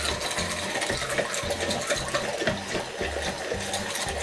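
Hand-held immersion blender running in a plastic jug, whirring as it blends egg yolks with lemon juice into a hollandaise base.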